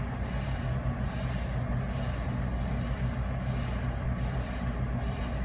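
Steady low rumble and hum with a faint hiss over it, unchanging and with no distinct events.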